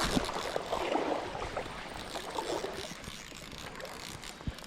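Water splashing and sloshing as a hooked smallmouth bass fights at the surface, with scattered small clicks; busier in the first couple of seconds, then settling.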